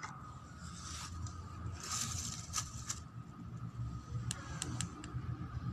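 Thin plastic ice candy bag rustling and crinkling in short bursts as hands handle it over a grafted stem, with a few sharp clicks about four and a half seconds in, over a steady low rumble.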